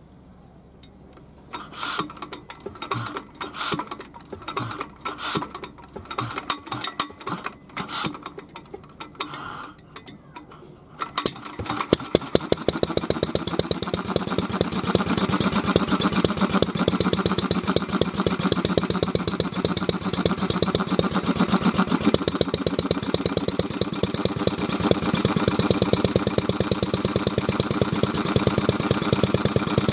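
Kubota AN-type single-cylinder kerosene stationary engine being started: about ten seconds of irregular sharp knocks and puffs roughly once a second, then it catches about eleven seconds in and settles into steady running with a rapid firing beat.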